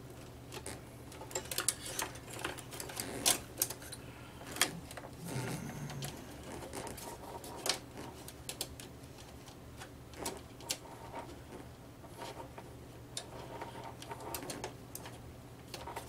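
Irregular clicks and light knocks of power cables, plastic connectors and the steel case being handled while cables are pushed into place inside a small computer case, over a low steady hum.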